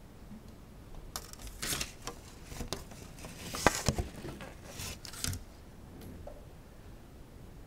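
Handling noise: a run of irregular clicks, taps and rustles over a few seconds, with one sharp click about halfway through.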